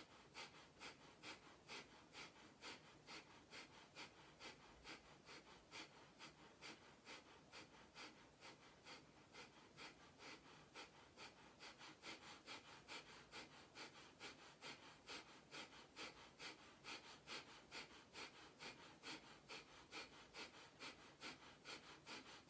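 Near silence in a small room, with a faint, even ticking about three times a second.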